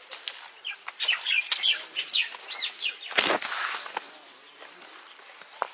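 Birds chirping in a rapid run of short, arched high notes for about two seconds, followed about three seconds in by a single short rushing sound.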